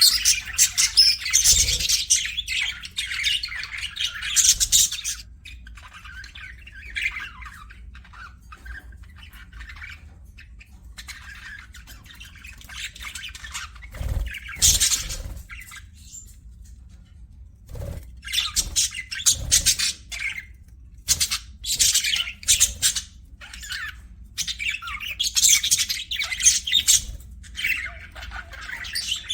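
Pet budgerigars chirping and chattering in high-pitched bouts: busy for the first five seconds, quieter for a while, then short bursts about halfway through and busy chatter again through most of the second half.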